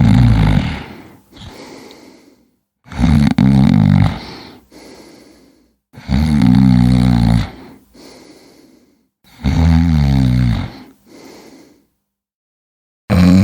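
A person snoring: a loud, low snore about every three seconds, each trailing off into a quieter, fading breath, with a fifth snore starting at the very end.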